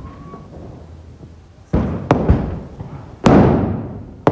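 Diwali firecrackers bursting: a bang, two quick cracks, then a louder bang about three seconds in whose sound rolls on and fades slowly, with another starting right at the end.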